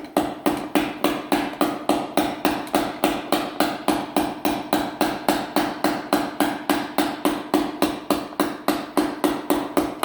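Hammer gently tapping a long screwdriver to drive a 4L60E transmission's low/reverse piston down into its bore, worked around in a circle. The taps are steady and even, about four a second, each with a short metallic ring.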